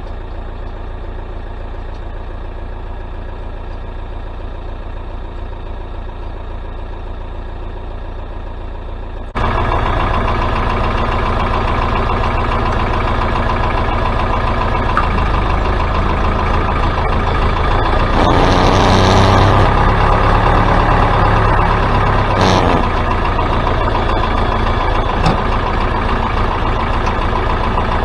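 Tractor engine idling steadily. The sound steps up suddenly about nine seconds in and swells louder for a few seconds about two-thirds of the way through.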